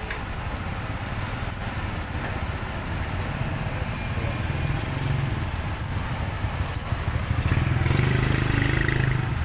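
A steady low engine rumble, like a small motor or a motorbike running nearby, that grows louder about two seconds before the end.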